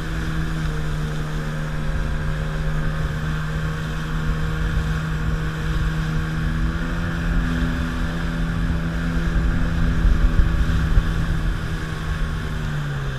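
Motorboat engine running steadily at speed under load while towing a tube, over the rush of water in the wake and wind on the microphone. Near the end the engine note drops in pitch.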